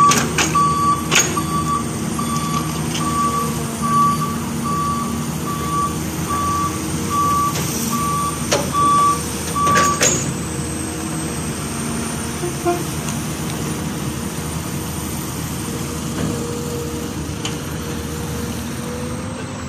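Dump truck's reversing alarm beeping evenly, about one and a half beeps a second, over the truck's engine running; the beeping stops about halfway through while the engine keeps running.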